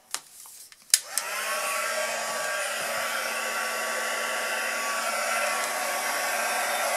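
Embossing heat gun switched on with a click about a second in, its fan spinning up with a short rising whine and then blowing steadily with an airy rush and a low hum, heating embossing powder to melt it.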